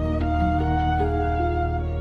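Instrumental passage of a Mandarin pop ballad: held notes over a steady low bass, with no singing.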